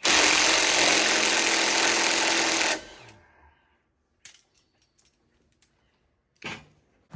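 Impact wrench running in one continuous burst of about three seconds, then a few faint knocks.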